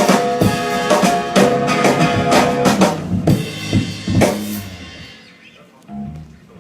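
Live band at sound check, drum kit with bass and sustained pitched instruments, playing a steady beat that stops about four and a half seconds in and rings away. A short low note sounds near the end.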